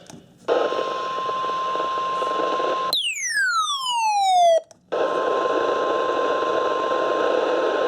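NOAA Weather Radio's 1050 Hz warning alarm tone, a steady single beep over radio static, the signal that a warning is about to be broadcast. About three seconds in it breaks off for a falling pitch sweep of about a second and a half, then a brief gap, and the tone and static return.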